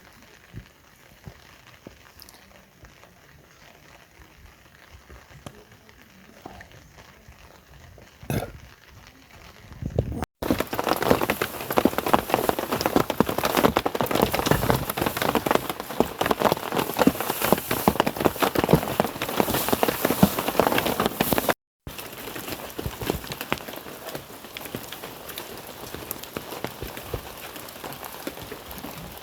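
Rain falling, a dense crackling patter. It is faint with a few scattered ticks at first, comes in heavy about a third of the way in, and drops to a lighter patter after an abrupt cut about two-thirds of the way through.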